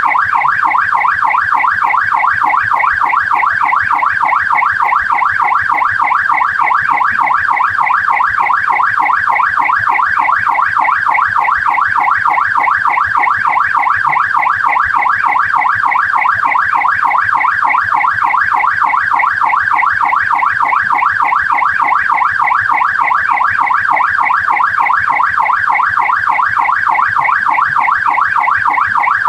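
Australian police car siren on the yelp setting: a loud electronic tone sweeping rapidly up and down several times a second, steady and unbroken.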